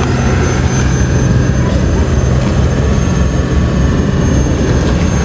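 Boat engine running steadily with a deep hum, loud and unchanging.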